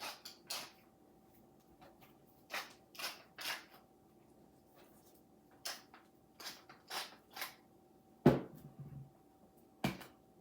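Kitchen handling sounds while food is being prepared: about a dozen short creaks and scrapes, with one louder knock a little past eight seconds in, over a faint steady hum.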